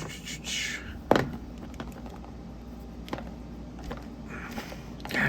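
Small parts of a metal fidget toy being handled and pried at: a few light clicks and taps with some rustling, the sharpest click about a second in.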